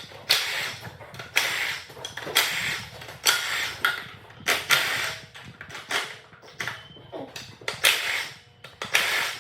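Irregular series of metal clanks and scrapes from hand tools working on a 5.3 LS V8 engine during teardown, about one stroke a second, some with a short metallic ring.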